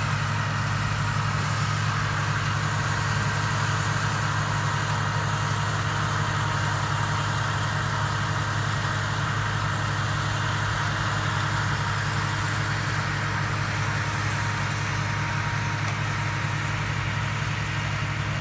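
Self-propelled tomato harvester running steadily, with an even low engine hum and a constant higher mechanical whir.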